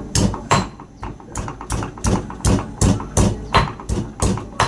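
Steady rhythmic knocks of food being worked by hand in the kitchen, about two and a half strikes a second, each a sharp hit with a dull low thud.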